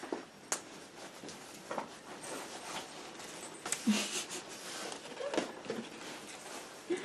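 Light handling noises of Christmas ornaments being picked up and hung: scattered small clicks and taps with some rustling, the sharpest clicks about half a second and nearly four seconds in.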